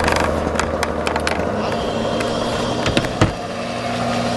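An engine or motor running steadily, its hum shifting in pitch about a second and a half in. Over it come scattered light clicks early on and two sharp knocks about three seconds in, from handling work on the roof.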